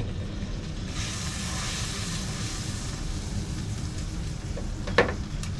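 Butter, garlic and lemon sauce sizzling softly in a frying pan over a gas burner, with a steady low rumble beneath it. A single short knock about five seconds in.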